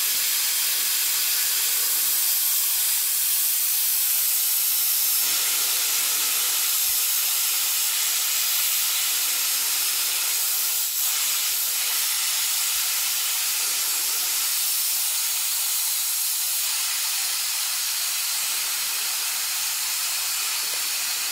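Steam hissing steadily out of a stovetop aluminium pressure cooker's valve, the weight held tilted to release the pressure slowly after cooking with the burner off. The hiss is high and even, easing very slightly toward the end.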